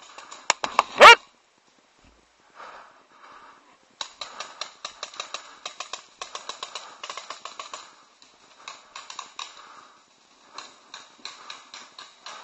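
Paintball markers firing in rapid strings of sharp pops, several shots a second with short pauses between strings. About a second in there is one loud, brief sound that rises quickly in pitch.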